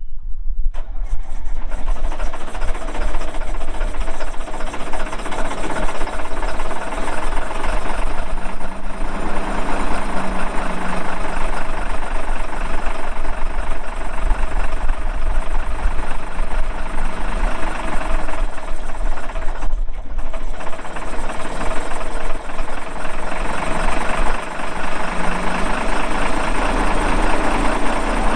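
Diesel engine of a 1999 John Deere 772CH motor grader running loudly and steadily on a cold start, cutting in abruptly at the start.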